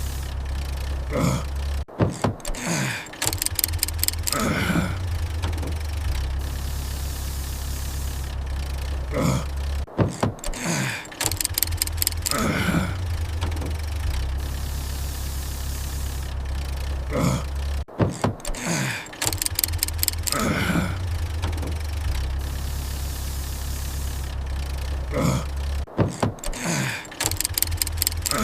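Looped car engine sound effect of a car that won't start: a steady low engine drone cuts out suddenly, followed by falling-pitch sputters and a quick run of clicks, then the drone returns. The cycle repeats about every eight seconds, four times.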